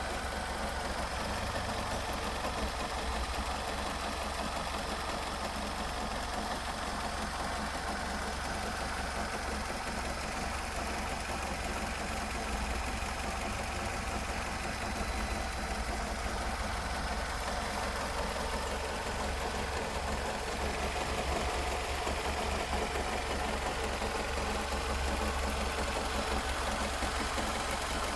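Nissan X-Trail T31's QR25 2.5-litre four-cylinder petrol engine idling steadily, fully warmed up, with extraneous noises that the owner suspects are not normal.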